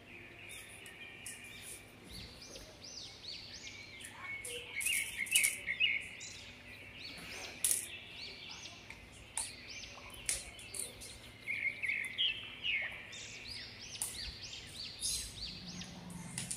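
Small songbirds chirping and singing in quick repeated runs of high notes, with scattered light clicks and rustles from handling satin fabric.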